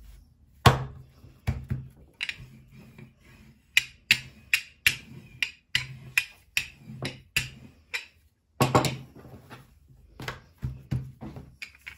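Wooden rolling pin rolling yeast dough out on a floured wooden countertop: a run of short knocks, about two a second, as the pin is pushed back and forth, with one louder knock about nine seconds in as the pin is set down.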